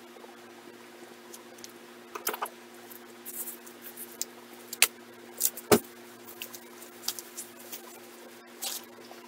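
Plastic wrapping crinkling and rustling as hands unwrap a small bottle, in scattered crinkles and clicks with one sharper click about halfway. A steady low hum runs underneath.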